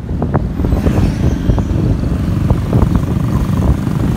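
Motorcycle running along a road, heard loud from the pillion seat, with wind buffeting the microphone and a few small knocks scattered through.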